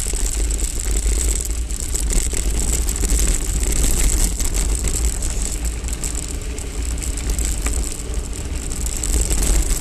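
Hardtail mountain bike rattling as it rolls fast over a rough, stony dirt track, with heavy wind rumble on the bike-mounted camera's microphone.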